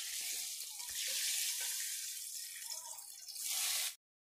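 Steady hiss of heavy rain, with a few light knocks as fried baby potatoes are tipped from a pan into a pot of chicken with a metal spatula. The sound cuts off abruptly near the end.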